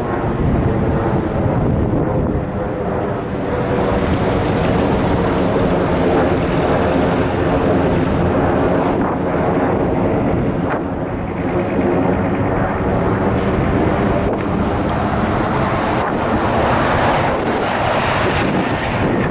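An articulated Volvo city bus's diesel engine running close by with a steady note, under wind rushing on the microphone; the bus grows louder as it passes alongside near the end.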